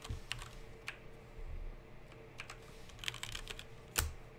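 Light, irregular clicks and snaps of a stack of baseball trading cards being flipped through in the hands, the sharpest snap about four seconds in. A faint steady hum underneath.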